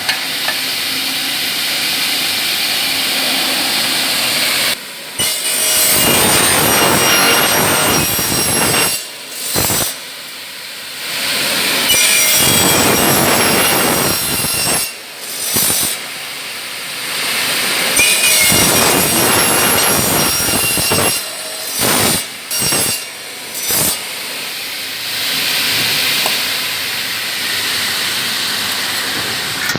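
Chop saw with a 355 mm blade on a 1.5 kW single-phase motor, running and cutting through thick aluminium window profile in several passes. There are loud runs with a high whine, broken by short drop-outs.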